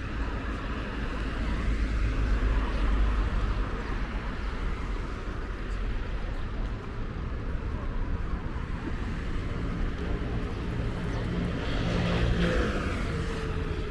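City street traffic: cars and other vehicles passing with a steady rumble of engines and tyres. It swells as vehicles go by about two seconds in and again near the end.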